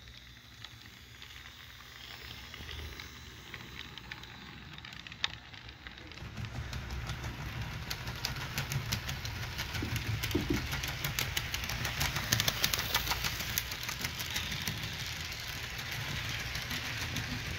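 HO-scale model train running on sectional track: the small wheels click rapidly over the rail joints above a low motor and running hum. It grows louder about six seconds in as passenger cars pass close by.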